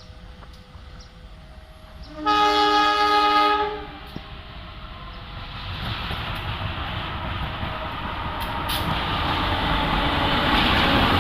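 Locomotive horn sounds one blast of about a second and a half a couple of seconds in, then the running noise of an approaching train builds steadily louder.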